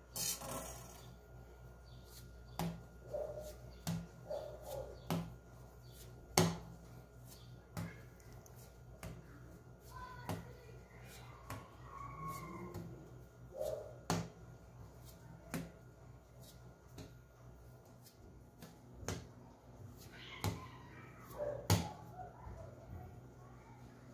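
Irregular light taps and knocks on a granite countertop as soft bread dough is pinched off into portions and set down, about one every second or two, over a steady faint hum, with faint voices in the background.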